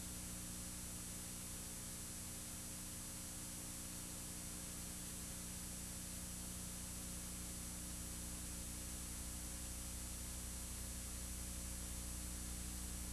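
Steady electrical hum with an even hiss, unchanging throughout, and no other sound.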